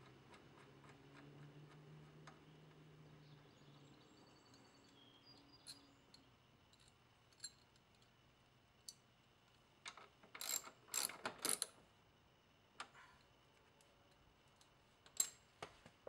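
3/8-inch drive ratchet wrench with a 14 mm socket tightening the mower's rear wheel bolt: scattered light metal clicks, then a quick run of louder ratchet clicks about ten seconds in, and one more click near the end.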